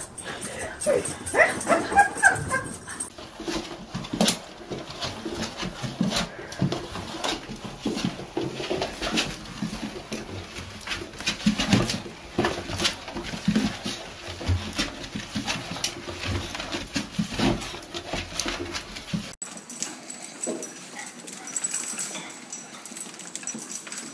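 Small dogs whimpering and yipping as they spin after their own leashes, over a run of short clicks and scuffles.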